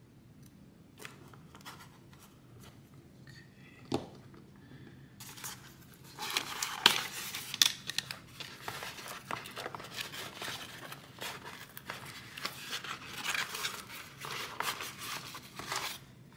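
Faint scraping of a pocketknife blade slitting the taped seam of a cardboard mailer box, with a sharp tap about four seconds in. From about five seconds on comes dense crinkling and tearing as the well-taped box is pulled open and handled.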